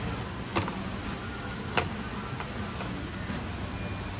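Two sharp clicks of tableware, chopsticks against ceramic dishes, about half a second and nearly two seconds in, with a fainter tap after, over a steady background din of the dining room.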